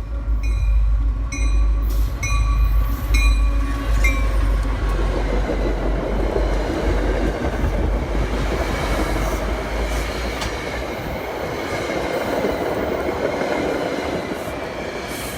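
MBTA commuter train passing at speed. The diesel locomotive's bell rings about twice a second over a deep engine rumble for the first four seconds or so, then the wheels of the passing coaches make a steady rushing noise on the rails that slowly dies away near the end.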